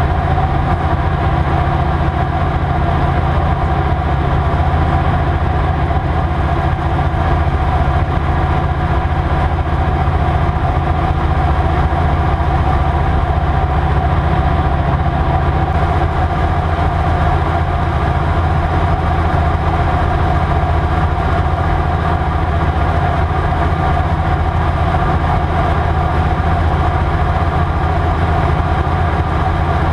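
Single-engine light aircraft's piston engine and propeller running steadily at cruise power, a constant drone heard inside the cockpit.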